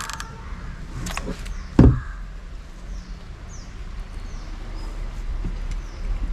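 A few light knocks, then one heavy thump just under two seconds in, over a steady low rumble. Faint short high chirps follow later.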